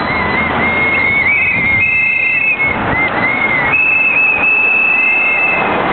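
Several whistles blown by strikers in long, overlapping blasts, some wavering as they start, over a steady rushing noise.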